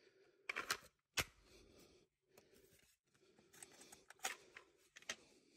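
Clicks and rattles of a Gilboa Snake double-barrel AR-15 being handled as its twin magazine is pushed into the magazine well, with the sharpest click about a second in. A few more clicks follow a few seconds later.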